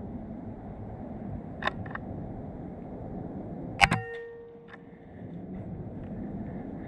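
Two faint clicks, then about four seconds in a single sharp crack from a suppressed Huben K1 .25 semi-auto PCP air rifle firing a slug, followed by about a second of metallic ringing, over a steady low background hum.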